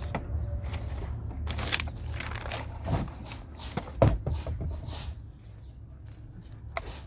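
Handling noise from bird bath and feeder kit parts being fitted together: scattered clicks and knocks, the sharpest about four seconds in, over a steady low rumble.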